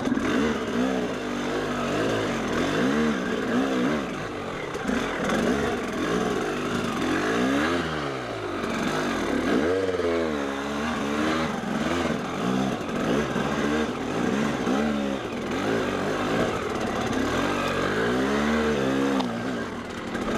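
Dirt bike engine revving up and down over and over, with the strongest, longest rises and falls about a third of the way in, as the bike works its way up a rocky climb.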